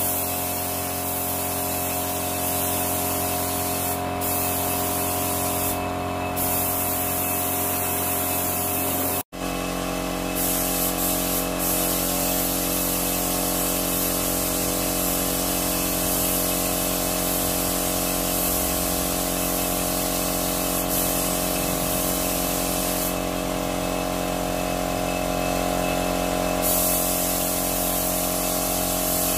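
Gravity-feed air spray gun hissing as it sprays paint, with a steady hum underneath. The hiss strengthens briefly a few times, and the sound cuts out for an instant about nine seconds in.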